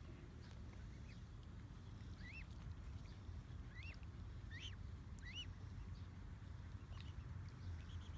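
Mute swan cygnets peeping: four short, high calls that each rise and fall, over a low steady background hum.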